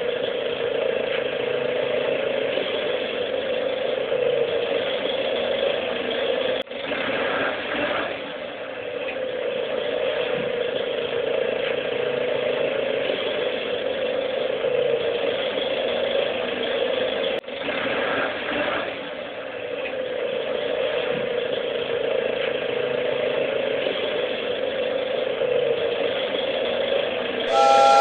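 Toy train running: a steady mechanical whirring and rattling of its motor and gears, broken twice by short dropouts. A whistle sounds right at the end.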